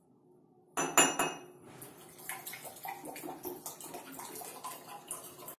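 Two drinking glasses clinking and rattling against each other as a hand shaking with a Parkinsonian tremor pours from one into the other. A couple of sharp, ringing clinks come about a second in, then a fast, irregular run of small ticks.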